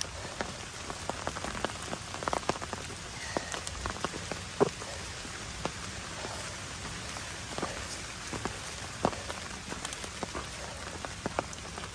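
Steady rain falling, with irregular sharp ticks of drops landing close by.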